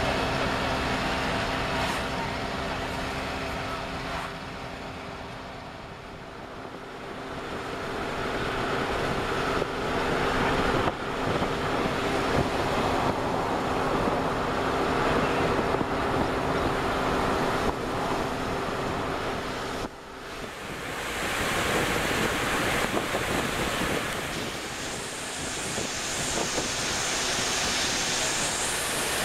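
Noise inside a vehicle driving on a wet road: steady engine hum with tyre and wind noise. About two-thirds of the way through the hum fades and a broader rushing hiss of wind takes over.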